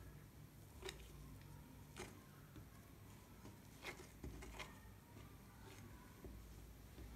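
Near silence with a handful of faint, short taps as small lumps of stiff flour dough are pinched off and set down on a wooden table.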